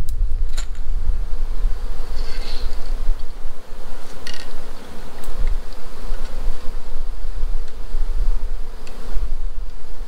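Honeybees buzzing steadily close to the microphone around the hives, over a heavy low rumble on the microphone. A couple of light clicks sound about half a second and about four seconds in.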